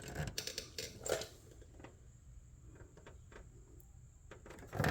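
A few light knocks and scrapes from a sheet-metal hood patch panel being set into place for a test fit, then faint scattered clicks.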